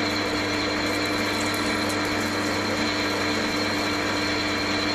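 Chester bench metal lathe running steadily, its motor and gear train giving an even hum with a constant whine, while a parting tool cuts into the turning workpiece.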